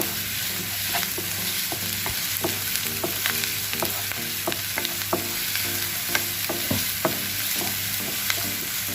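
Chopped onion sizzling in hot ghee in a frying pan, with frequent short scrapes and taps of a spoon as it is stirred to wilt the onion without browning.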